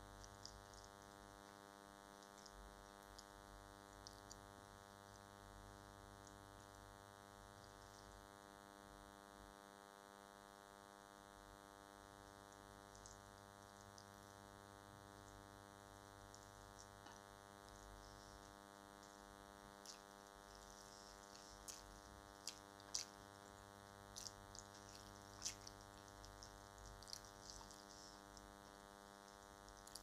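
Faint, steady electrical hum made of many even tones, a fault in the recording. Over it come faint eating sounds: short sharp clicks and smacks of chewing and fingers working the food, sparse at first and more frequent in the last ten seconds.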